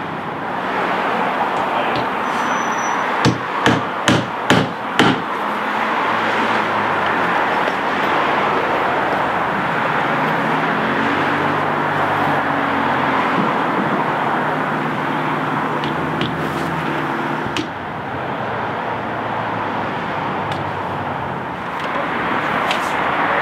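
Five quick hammer blows in under two seconds, driving a galvanized nail through a ThermalBuck foam window buck into the wall framing, over a steady background hum.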